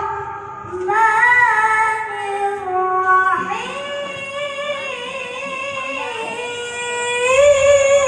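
A child reciting the Qur'an in the melodic qiroah style, holding long ornamented notes that waver and slide between pitches, rising to a higher line about three and a half seconds in. The voice is amplified through a loudspeaker sound system.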